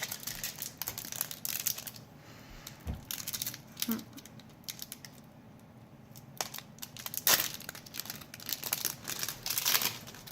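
Foil trading-card pack being torn open and crinkled by hand, in bursts of crackling with short pauses between.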